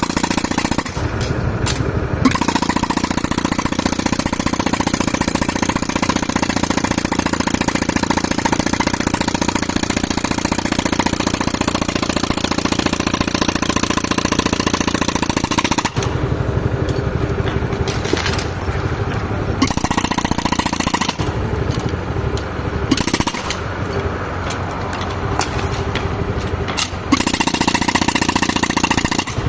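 Pneumatic rock breaker (jackhammer) hammering rapidly with a loud hiss of air, driven by a tractor-powered air compressor whose engine runs underneath. The hammering breaks off briefly several times in the second half while the engine keeps running.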